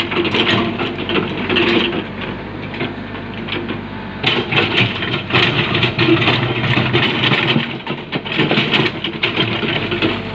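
Diesel engine of a Komatsu hydraulic excavator running steadily, quieter for a couple of seconds and then louder again from about four seconds in.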